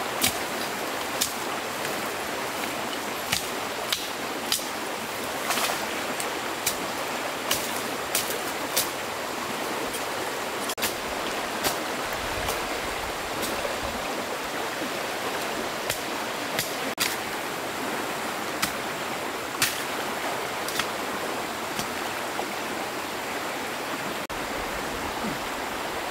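Steady rush of flowing stream water, with sharp short knocks at irregular intervals of about a second that thin out near the end.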